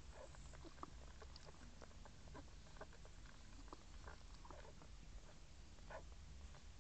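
Newborn puppies nursing: faint wet suckling and smacking with small scattered squeaks, over a low steady hum.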